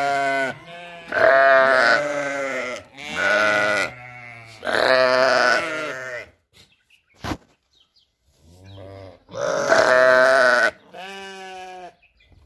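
Sheep bleating repeatedly: about six drawn-out, wavering calls of around a second each, with a lull in the middle broken by a single sharp click.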